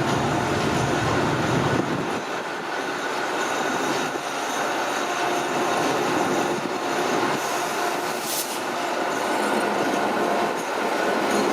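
Passenger train rolling slowly on station tracks, its steel wheels squealing on the rails with a clatter over the joints.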